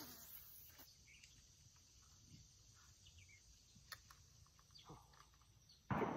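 Faint outdoor ambience with a few short, faint bird and insect chirps and occasional small ticks. A brief swish comes at the start as a spinning rod is cast, and a sudden loud thump comes near the end.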